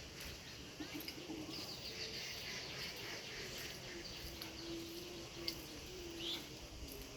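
Outdoor ambience with faint bird chirps and small ticks, over a faint wavering, held low tone.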